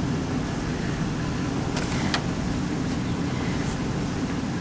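Motor vehicle engine running: a steady low hum, with two faint clicks about two seconds in.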